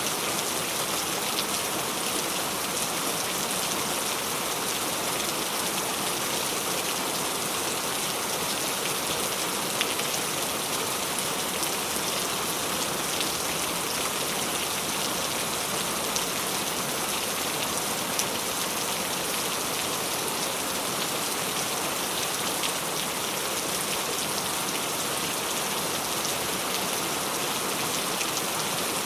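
Steady, even rain falling, with scattered drop ticks on a hard surface over the constant hiss.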